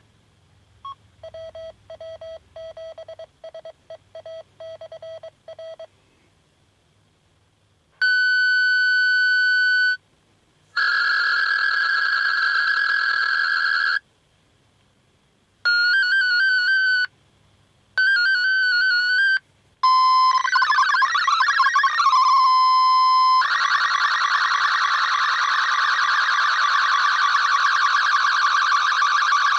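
Amateur radio digital-mode audio: data tones sent over an FM repeater as an MFSK64 picture transmission starts. First a pulsed pattern of short beeps, then several separate bursts of stacked tones with silent gaps, a warbling stretch, and from about three quarters of the way through a continuous, dense warble of many tones carrying the image data.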